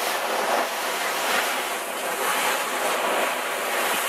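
Sea water rushing and splashing alongside a boat's hull, a steady hiss that swells and eases a little.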